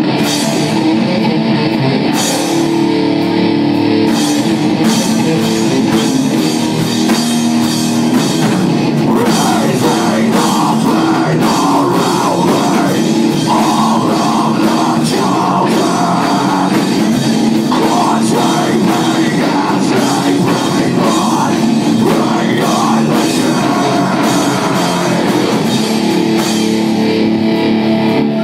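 Rock band playing: electric guitar over a drum kit, loud and steady throughout.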